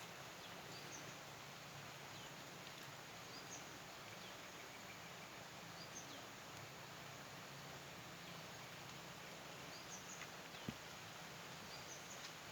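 Quiet outdoor ambience: an even hiss with a bird's short, high chirps repeating every couple of seconds.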